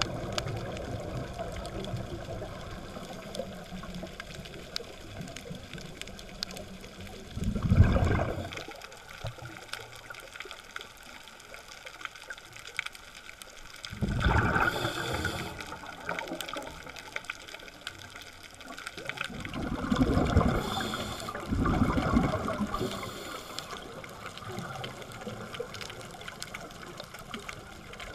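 Scuba regulator exhaust bubbles, heard underwater: a gurgling rush of exhaled air about every six seconds, four times, over a steady low underwater background.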